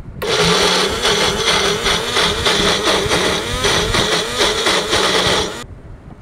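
Electric mixer grinder running, grinding soaked chana dal with a little water to a coarse paste. It starts a moment in, runs steadily, and cuts off suddenly about a second before the end.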